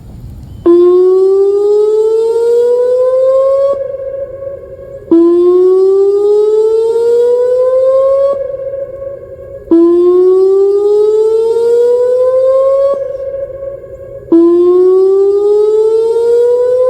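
Whelen WPS-2909 electronic outdoor warning siren sounding its whoop tone: four loud whoops, each a rising wail that climbs for about three seconds, holds for a moment and cuts off. They repeat about every four and a half seconds, with echoes trailing away after each one.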